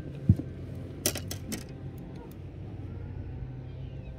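A just-landed largemouth bass and its soft-plastic lure being handled: a single low thump about a third of a second in, then a quick run of sharp clicks about a second in, over a steady low hum.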